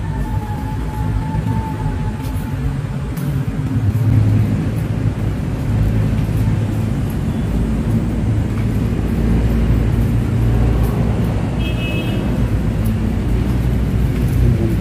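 Steady low rumble of outdoor background noise, with a brief high tone about twelve seconds in.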